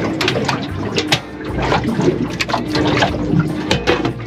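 Water slapping and lapping against the aluminium hull of a small boat, with short knocks throughout and a faint steady hum underneath.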